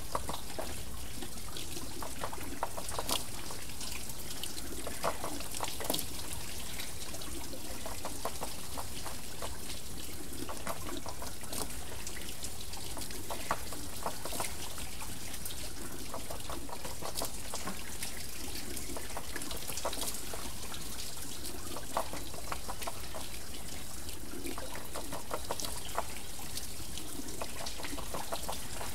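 Water wheel turning, with water steadily trickling and pouring off it and a splash every two to three seconds.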